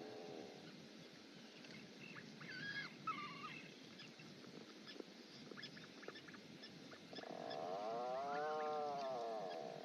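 Auks calling: a few short, high chirping calls about three seconds in, then one long drawn-out call that rises and falls in pitch near the end, over a faint steady background.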